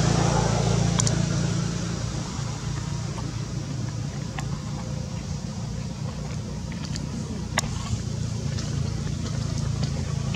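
A low, steady engine hum, strong at the start, easing after about two seconds and rising again near the end, with a few sharp clicks over it.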